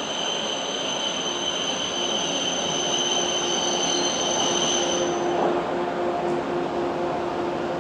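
E7 series Shinkansen train creeping into a station platform, with a steady high-pitched whine from the train that cuts off about five seconds in, over a low hum.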